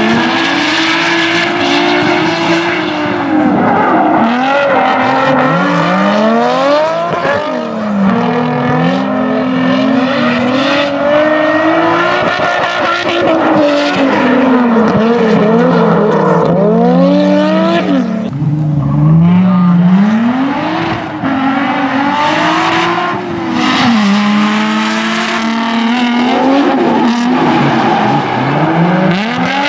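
Two drift cars, a BMW E36 coupe and a Nissan 350Z, sliding in tandem: engines revving high and falling off again and again as the throttle is worked through the slide, over the hiss and squeal of spinning tyres.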